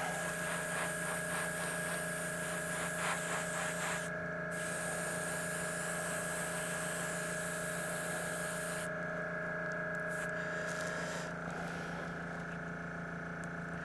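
Airbrush spraying acrylic paint in long passes, a steady hiss that breaks off briefly about four seconds in and again around nine seconds, over the hum and whine of a small airbrush compressor. The whine stops about eleven seconds in.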